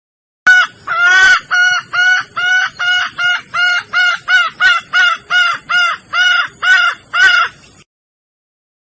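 Red junglefowl hen in breeding condition calling for a male: a fast series of about seventeen short, repeated, arched calls, about two a second. The series starts abruptly and stops shortly before the end.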